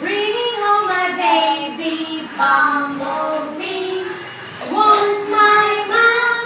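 A woman and young children singing a song together, with no instruments, in a run of held, changing notes.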